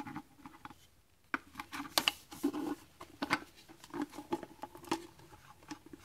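Close-up handling of a PVC pipe and its plastic water-bottle cap: irregular small clicks, taps and scrapes.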